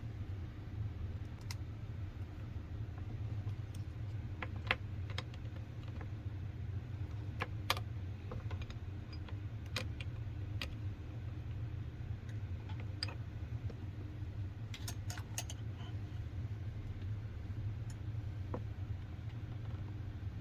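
Scattered small clicks and taps of the plastic parts of an opened cordless tire inflator being handled, a dozen or so at irregular intervals. A steady low hum runs underneath.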